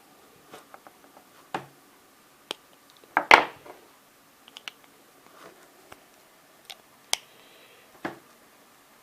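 Scattered sharp clicks and scrapes of a tool working at the metal casing of a 9-volt battery, prying it open along its seam, with the loudest scraping crunch a little over three seconds in.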